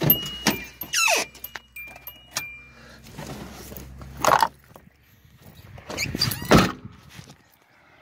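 Car keys jangling in hand with a string of sharp clicks and a few short high tones, then heavy thunks of the car door, the loudest about six and a half seconds in.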